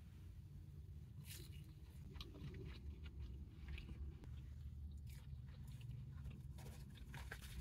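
Close-up chewing and biting of food, with scattered faint crunches and mouth clicks from about a second in, over a steady low hum.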